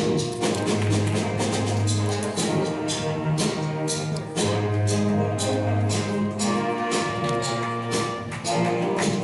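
High school band playing a brass-led piece, with sustained low brass notes over a steady drum beat.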